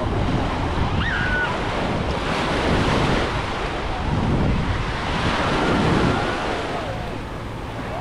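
Sea waves washing onto the beach, swelling about three seconds in and again about six seconds in, with wind buffeting the microphone.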